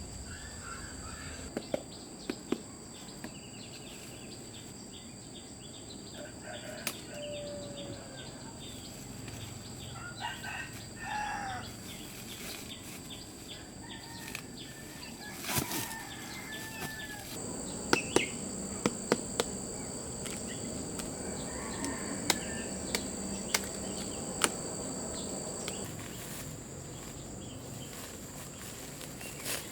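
Insects shrilling steadily on two high tones, with the lower tone dropping out near the end. Chickens cluck now and then, with scattered knocks and clicks, most of them in the second half.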